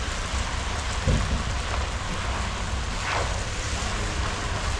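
Chowmein frying in a pot over an open fire: a steady sizzling hiss, with a bump about a second in and a brief scrape about three seconds in as it is stirred.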